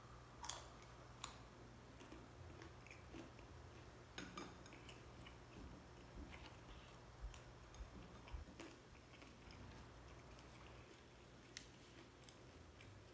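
Quiet chewing of grapes, with a few sharp clicks about half a second and a second in and another cluster around four seconds.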